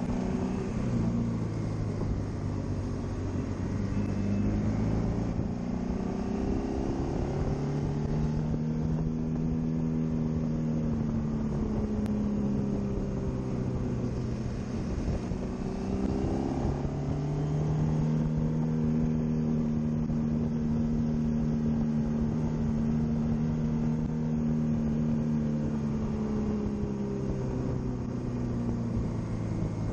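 Honda VFR800X Crossrunner's V4 engine running under way, heard from on the bike, its note stepping up and down several times with throttle and gear changes, over steady wind and road noise.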